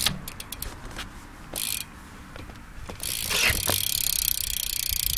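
Salt rear hub's freewheel ratchet clicking: a few separate clicks, then from about three seconds in a fast, steady buzz of clicks as the wheel freewheels.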